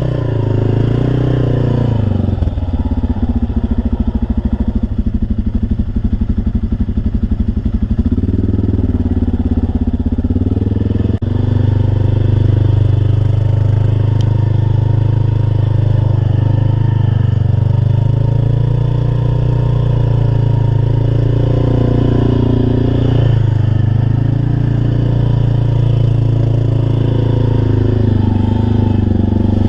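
Big mud-racing truck engine running hard and revving, its pitch rising and falling throughout. There is a rapid clattering from about two to eight seconds in, and the sound jumps louder about eleven seconds in.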